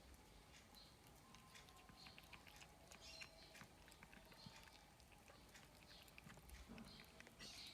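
Faint, short, high squeaks from newborn kittens, repeating every second or so, over soft scattered clicks.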